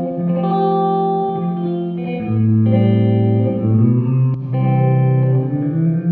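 Electric guitar, a Gibson Les Paul Custom through a Marshall 1987X amp, playing held chords through a Dr. Scientist Reverberator reverb pedal, the chords ringing out with reverb. The chord changes every second or two.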